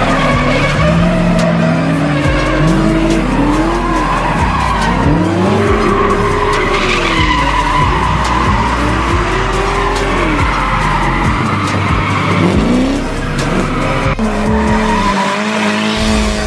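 Drift cars sliding sideways, their engines revving up and falling back about six times, with tyres squealing and skidding.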